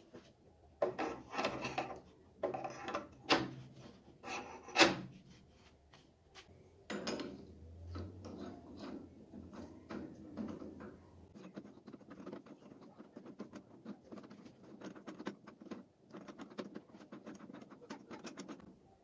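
Metal scraping and clattering for the first few seconds, with one sharp metal knock, the loudest sound, about five seconds in. Then a chuck key turns in a keyed drill chuck, its small gear teeth clicking rapidly against the chuck's ring gear as the jaws are wound.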